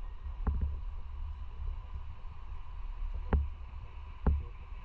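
A few short, dull knocks over a steady low rumble: two close together about half a second in, then one a little after three seconds and one a little after four.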